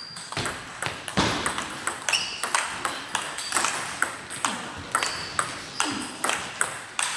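Table tennis ball being struck back and forth in a rally, a quick, uneven run of sharp clicks as it hits the bats and the table, several a second.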